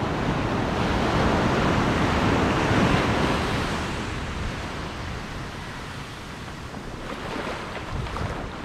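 Ocean surf washing up a sandy beach, swelling over the first few seconds and then easing off, with wind buffeting the microphone.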